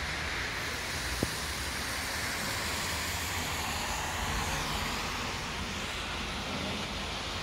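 Steady hiss of rain falling, with car tyres swishing on the wet road. A single sharp click about a second in.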